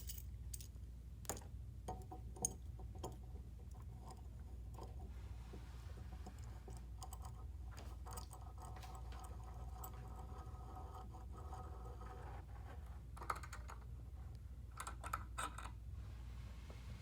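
Light scattered clicks and taps of metal parts handled while a rivet setter is clamped onto a work surface, several near the start and another cluster near the end, over a faint low hum.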